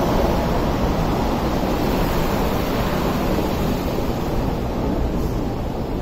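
West Rail Line electric train passing and running away, a steady rushing rail noise that slowly fades, with some wind on the microphone.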